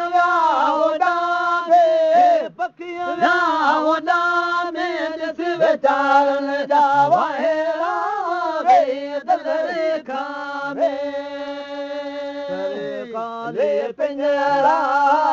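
Sindhi maulood devotional chanting: a man's voice drawing out long held notes that waver and bend between pitches, with no clear words.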